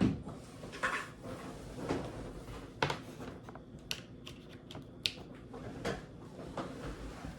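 Scattered light clicks and taps of small tools and parts being handled during a MacBook Pro repair, with one sharper click about three seconds in and a quick run of small ticks just after.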